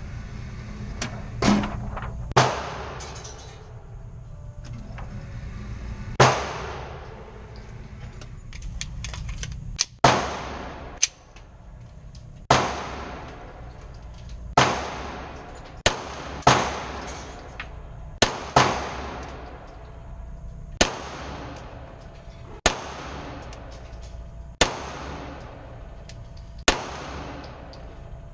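A 9mm pistol fired one shot at a time at a slow, steady pace, about fifteen shots, mostly a second or two apart with a few quicker pairs. Each shot is a sharp crack with a short ringing echo.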